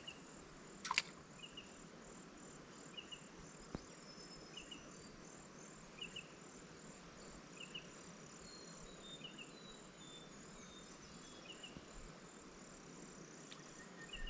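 Insects chirping: a steady high buzz with a short double chirp repeating about every one and a half seconds. A single sharp click about a second in.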